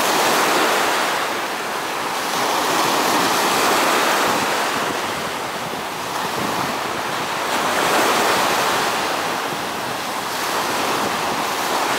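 Small ocean surf breaking and washing up the beach: a steady hiss that swells and eases every three to four seconds as each wave comes in.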